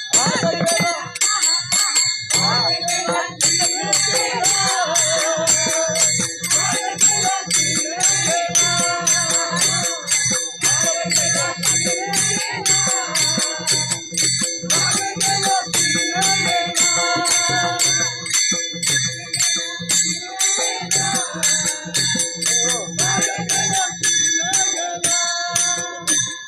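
A devotee singing a Marathi varkari bhajan with a wavering melody. It is accompanied by an even beat of ringing taal hand cymbals and a drum.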